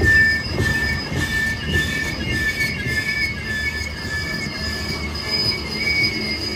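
BNSF freight train rolling past, its steel wheels squealing against the rails in several high, wavering tones over a low rumble.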